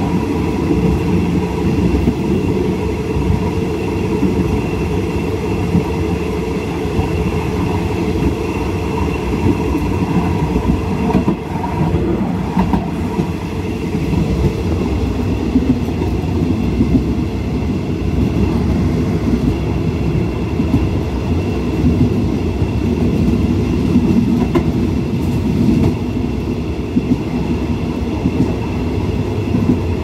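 Passenger train running along the line, heard from on board: a steady rumble of wheels on the rails with some clickety-clack.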